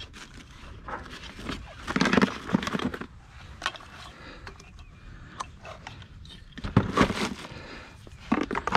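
Handling noise: irregular clusters of clicks, knocks and rustles, loudest in three bursts, over a low rumble.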